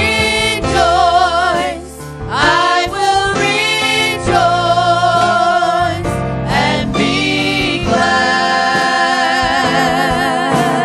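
Gospel worship song sung by a choir, with long held notes wavering in vibrato over accompaniment.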